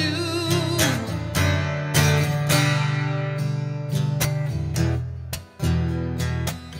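Acoustic guitar strummed in a steady rhythm of chords. The last held sung note, with a slight waver, trails off about a second in, leaving the guitar alone.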